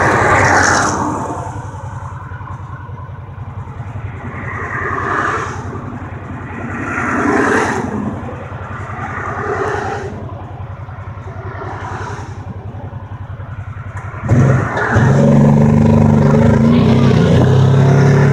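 Kawasaki Teryx S LE side-by-side's 800 V-twin idling steadily while highway traffic goes by in several whooshing swells. About fourteen seconds in, the engine is opened up and the machine pulls away, much louder.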